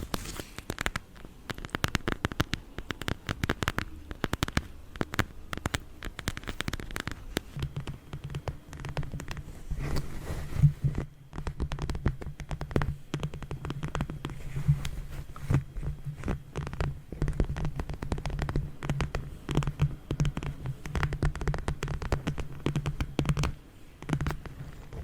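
Long fingernails tapping quickly on a mask, a dense run of light clicks. From about seven seconds in, a low hum sits underneath the tapping until near the end.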